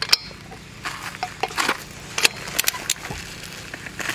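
Click-type torque wrench re-torquing the lug nuts on an eight-lug wheel: several sharp metallic clicks and clinks at irregular intervals, from the socket on the nuts and the wrench releasing at its set torque.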